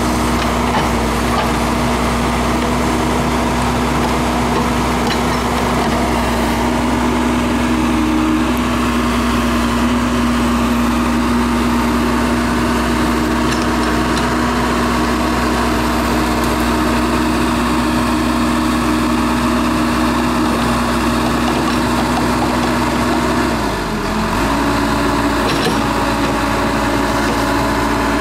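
Case 580L Turbo backhoe's turbocharged four-cylinder diesel engine running steadily at working speed. About 24 seconds in, the engine note dips briefly, then recovers.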